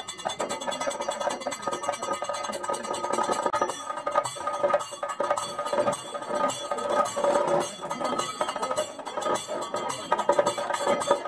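Rapid metallic clinking strikes of Kathakali percussion, the small hand gong (chengila) struck with a stick and hand cymbals, with a steady ringing tone under the strokes.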